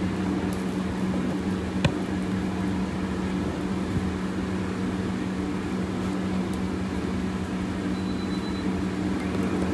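Steady hum and rush of a restaurant kitchen's wok range and exhaust hood fan, with a constant low drone. A single sharp clack about two seconds in.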